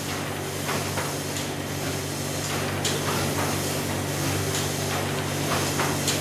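Ship's engine running steadily: a low hum over a hiss, with scattered short clicks and knocks from the machinery.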